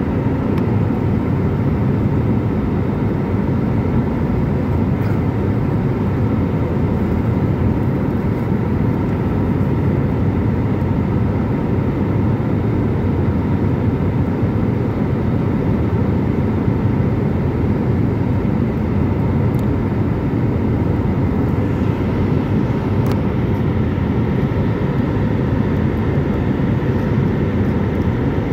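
Jet airliner cabin noise heard from a window seat over the wing while climbing out: the steady low rumble of the turbofan engines and rushing air, with a few faint steady tones above it.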